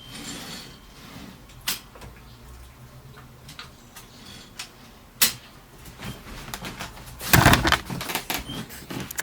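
Metal mechanism of a 1950 Mercedes office typewriter: a few sharp clicks of levers and carriage, then a louder sliding rattle about seven seconds in as the carriage is run along freely on its release lever, followed by more clicks.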